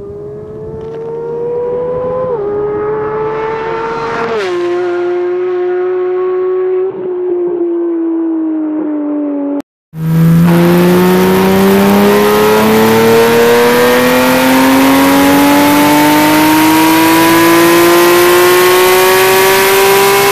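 Porsche 991 GT3's naturally aspirated flat-six at high revs through an Evolution MotorSports stainless exhaust and headers. It first pulls hard with two quick upshifts, the pitch dropping each time, then the note sinks slowly. After a short cut, a louder take has the engine note climbing slowly and steadily in pitch.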